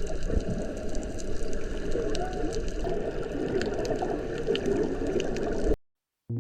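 Low, churning water noise with scattered small ticks, cutting off abruptly near the end.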